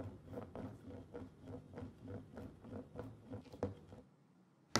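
A plastic hoop rattling against a wooden floor: quick, even clicks about four times a second that stop about four seconds in, then one sharp click near the end.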